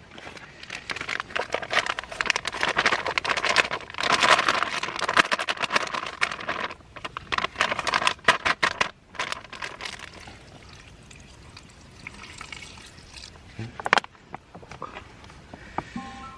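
Liquid being poured into a cooking pot, a steady splashing pour loudest for most of the first ten seconds, then quieter. A single sharp knock near the end.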